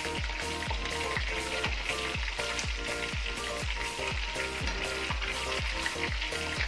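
Hot oil sizzling steadily around chicken drumsticks deep-frying in a wok on their second fry, as they are lifted out into a wire strainer. Background music with a steady beat of about three thumps a second runs underneath.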